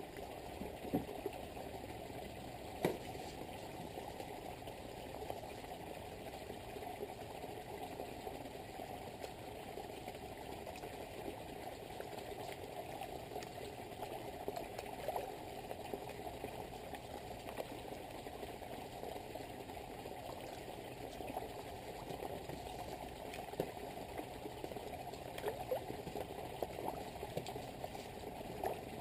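Steady splashing and trickling of a small waterfall pouring into a garden pond, with a few sharp pops at the water, more of them near the end.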